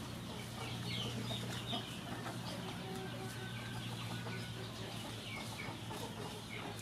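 Chickens clucking in short, scattered calls over a steady low hum.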